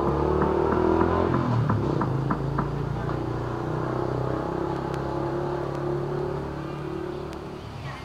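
A motor engine running with a steady, even hum that drifts slightly in pitch and slowly fades, with a few light clicks in the first few seconds.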